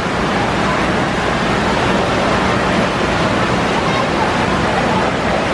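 Steady din of water splashing and spraying from splash-pad fountains in an indoor water park, under the babble of a crowd with children's voices.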